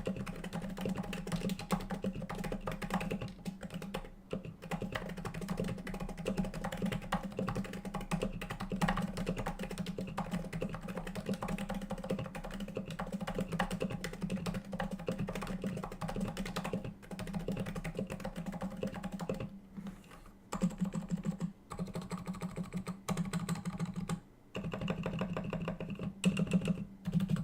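Steady typing on a Topre Novatouch keyboard with stock 45 g domes and MT3 keycaps, silenced with the dental band mod: dense, muted keystrokes with a low thock. The typing breaks off briefly a few times, around a quarter of the way in and again later on.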